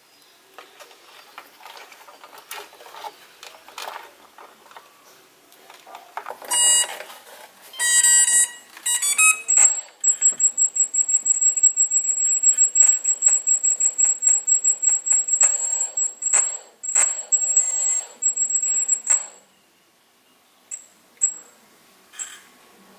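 Electronic beeping from an Emax BLHeli 40A brushless ESC setup. A short run of pitched startup beeps ends on a rising three-note figure, then a rapid, high-pitched beeping runs for about nine seconds and stops abruptly. Light clicks of handling and transmitter switches are heard throughout.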